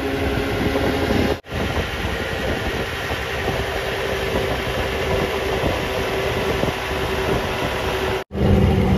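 Outboard motor running steadily at speed while towing, with the rush of water and wind mixed in. The sound drops out briefly about a second and a half in and again near the end.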